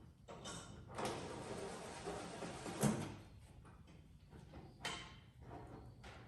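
Smoker parts being handled during assembly: a scraping slide lasting about two seconds that ends in a sharp knock, then a second knock about two seconds later.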